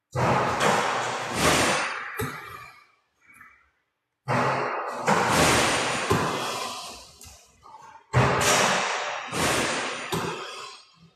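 Basketball shooting with a ball-return shooting machine: three bursts of thumps and rattling noise, each starting suddenly with a hit and fading over about three seconds.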